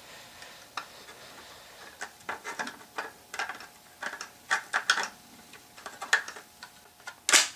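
Light, irregular clicks and taps of small plastic display-housing parts being handled and fitted together, with a louder sharp click near the end as a piece snaps into place.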